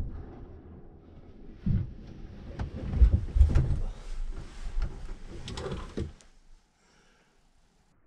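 The echo of a flintlock muzzleloader shot dying away in a small wooden hunting blind. Then comes a stretch of low thumps, knocks and rustling as the shooter moves about close by. It goes quiet about six and a half seconds in.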